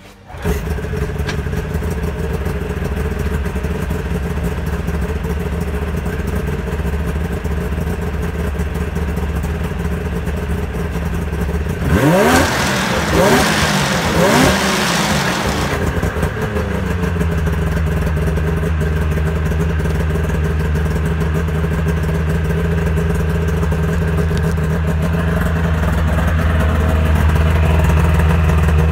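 Yamaha VMAX SX 700's three-cylinder two-stroke engine idling steadily on the stand. About twelve seconds in it is revved three times in quick succession, then it settles back to a steady idle.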